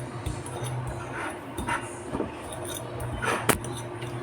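Metal fork crushing oregano leaves against a plate: soft scraping and light taps, with one sharp clink of fork on plate about three and a half seconds in, over a low steady hum.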